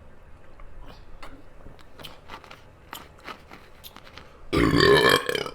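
Close-miked chewing, with a string of wet clicks and crunches, then a loud burp lasting about a second near the end.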